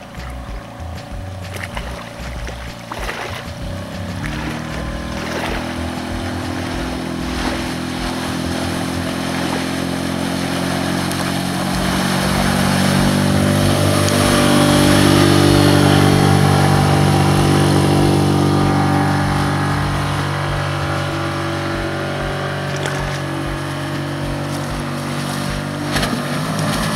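Small outboard motor on an inflatable PVC boat running at speed as the boat goes past, its steady note growing louder to a peak in the middle and then fading, and dropping in pitch near the end.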